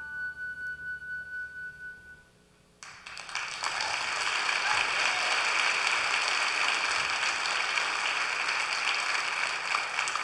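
The song's closing chord is held and fades out. After a brief pause, theatre audience applause breaks out, swells within a second or so and carries on steadily.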